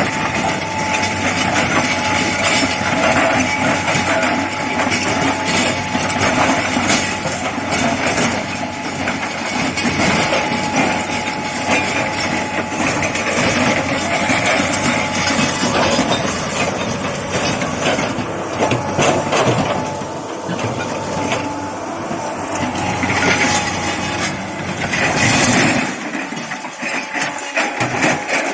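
Tata Hitachi 200 Super excavator working: its diesel engine running under load with the hydraulics, and a steady whine over the engine.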